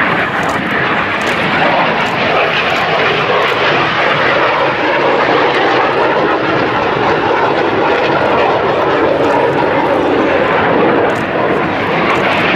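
Northrop F-5E Tiger II jet fighter flying past, its twin J85 turbojets making a loud, steady rushing jet noise. A hollow tone in the rush sinks slowly in pitch and rises again near the end.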